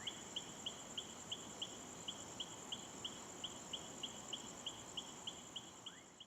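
Night insects calling: quiet, evenly spaced high chirps about three a second over a steady high-pitched buzz.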